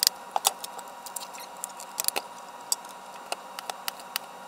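Knife cutting a block of canned SPAM on a paper plate: irregular sharp clicks and taps of the blade and the tin against the plate and counter, over a steady faint high hum.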